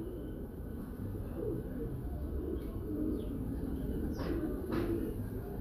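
Pigeons cooing, with two short, sharp bird calls about half a second apart near the end.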